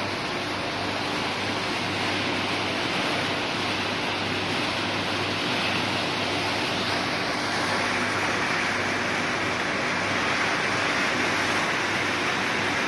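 Stainless-steel crate washer running: a steady rush of water spraying inside the washing tunnel, over the low, even hum of its pump motor.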